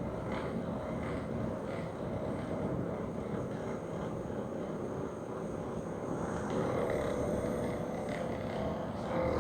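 Steady low droning background noise with no speech. A faint hum of a few tones joins it about six and a half seconds in.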